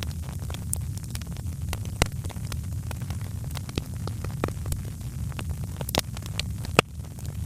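Wood fire crackling: irregular sharp pops and snaps over a steady low rumble, with the strongest pops about two seconds in and near the end.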